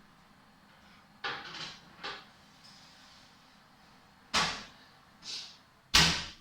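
Kitchen oven being opened and shut as a roasting tray goes in: a few clatters and knocks, then two sharp bangs, the louder one near the end as the oven door closes.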